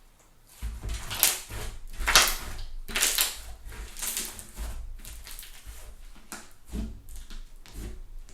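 Thick fluffy slime being squeezed and stretched by hand, crackling and popping as trapped air bursts, in a series of bursts loudest in the first three seconds.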